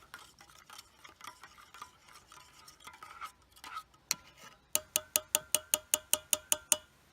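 Spoon stirring coffee in a camp mug: soft scraping and light taps at first, then about a dozen quick ringing clinks against the side of the mug, about five a second, over the last two seconds.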